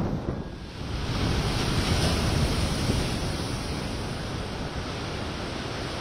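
Rough sea whipped up by an approaching cyclone: surf breaking in a steady rush, with wind on the microphone. The rush swells up about a second in and holds steady.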